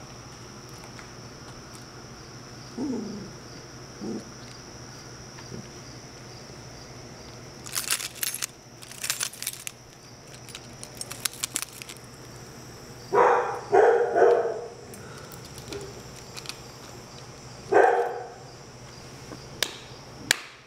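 A set of keys jingled twice in quick bursts, shaken to test a young puppy's hearing. A few seconds later come three short, louder sounds in quick succession and one more near the end.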